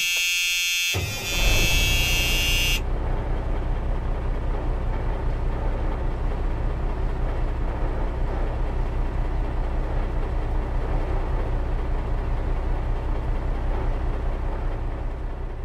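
A vehicle horn sounds for about the first three seconds. Then a truck's diesel engine runs as a steady low, fast-pulsing rumble, heard from inside the cab.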